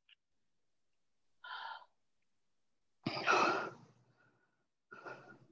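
A person breathing hard after a workout: four noisy breaths, about one every two seconds, the one about three seconds in the loudest, heard through a video-call microphone.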